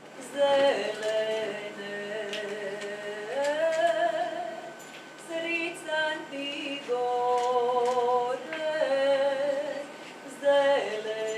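A woman singing a traditional Croatian folk song solo and unaccompanied, in long held notes that step between pitches, with brief breaks between phrases.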